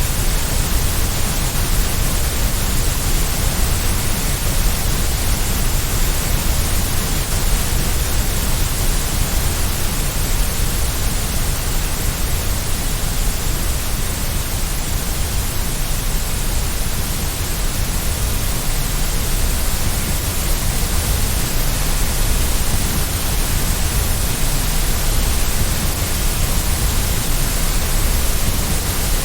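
Steady generated noise from a white-noise track: an even, unchanging hiss with no rhythm, tone or breaks.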